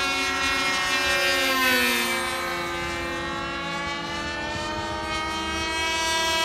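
Radio-controlled model airplane's glow (nitro) engine running at high revs in flight, a loud buzzing whine whose pitch drops about one to two seconds in as it passes, then climbs again toward the end.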